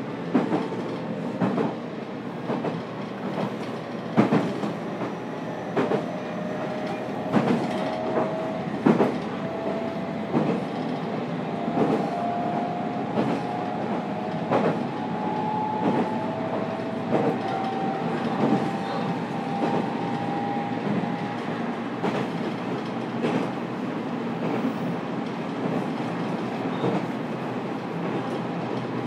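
JR Kyushu 813 series electric train (Toshiba GTO inverter) running, heard from inside the motor car: a steady rumble with wheels clacking over rail joints at irregular intervals, and a thin tone slowly rising in pitch through the middle stretch.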